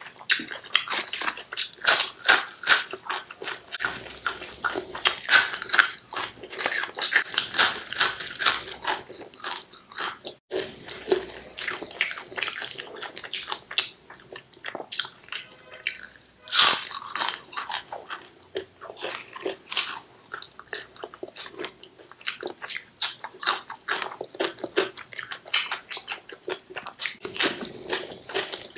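Close-up chewing and crisp crunching of food: moong papad cracking as it is bitten and broken, mixed with softer chewing of rice and chickpea curry. There is a louder crunch a little past halfway.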